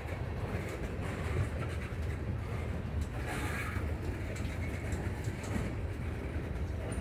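Freight train's tank cars and boxcars rolling past on the rails: a steady low rumble of wheels, with scattered light clicks.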